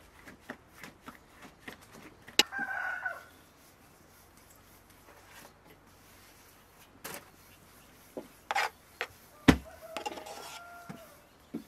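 A chicken clucking in two short calls, about two and a half seconds in and again near the end, among scattered taps and knocks, with a sharp thump about nine and a half seconds in.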